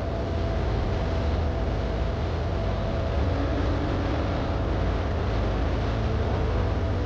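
Motorboat engine running steadily with a heavy low rumble, mixed with rushing noise.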